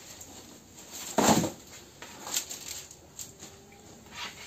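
Handling noise of wooden marking gauges and their boxes: a louder rustle or knock a little over a second in, then a few light clicks and taps.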